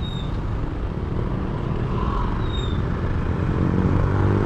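Motorcycle engine running at low speed in slow, dense traffic, a steady low hum mixed with the noise of the surrounding cars and motorcycles. Two short high squeaks sound, one at the start and one about halfway through.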